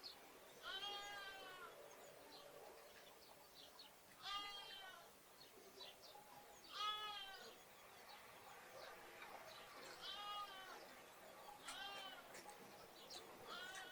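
Lambs bleating, about six high-pitched calls a few seconds apart, with sparrows chirping faintly in the background.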